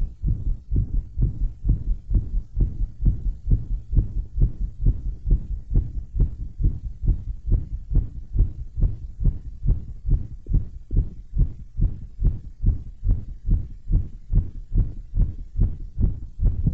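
A person's heartbeat, amplified and heard close up: steady, regular low thumps.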